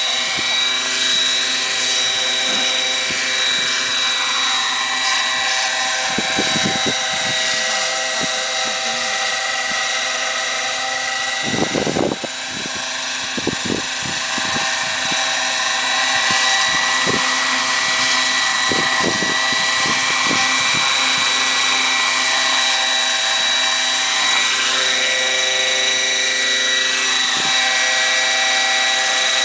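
Electric Class 90 radio-controlled model helicopter in flight: a steady high whine from its motor and rotors, the pitch sliding up and down as it manoeuvres and passes by.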